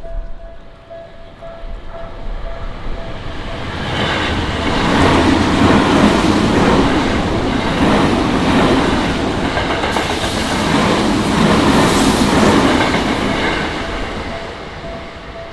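A Tokyu Toyoko Line electric commuter train passes over the level crossing. It builds up about four seconds in, runs loud with a steady rhythmic clatter of wheels over the rail joints, and fades near the end. The crossing's warning bell rings with a repeating ding at the start, is drowned out while the train goes by, and is heard again near the end.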